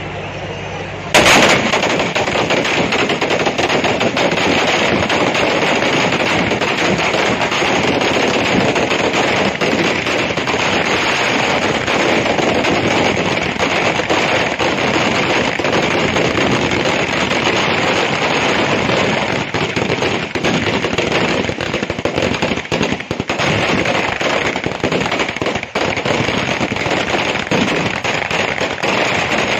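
A long string of firecrackers (sara vedi) going off on the ground, bangs following one another fast and without a break. It starts suddenly about a second in.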